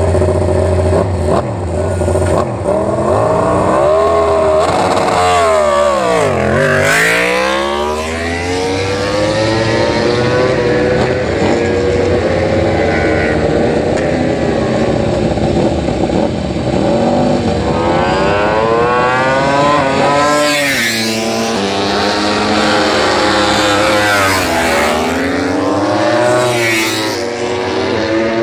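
Four-cylinder MotoGP prototype race bikes doing practice starts. Engines are held at high revs while standing, then launch hard, the pitch dipping and climbing steeply through the gears as each bike pulls away. This happens several times, one bike after another.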